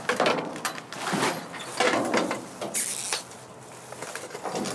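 Rummaging through items in a dumpster: irregular rustling, scraping and knocking of objects being picked up and moved.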